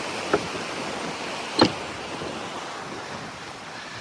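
Fast-flowing river rushing steadily, growing a little fainter toward the end. Two short sharp knocks cut through it, about a third of a second in and, louder, about a second and a half in.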